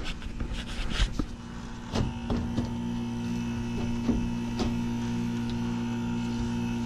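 WaterFurnace Premier 2 geothermal heat pump, running in heat, giving a steady electrical hum that sets in about two seconds in. Over it come a few knocks and clicks as its sheet-metal access panel is handled and pulled off.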